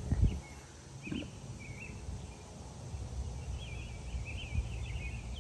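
Small birds chirping in short, warbling phrases, more often in the second half, over a low rumble of wind on the microphone. A brief low thump comes just after the start.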